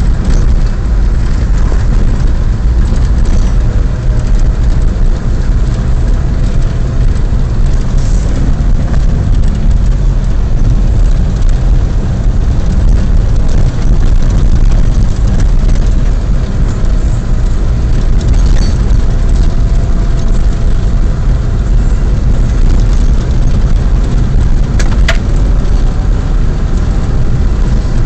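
Car interior noise while driving: a loud, steady low rumble of engine and road noise heard inside the cabin.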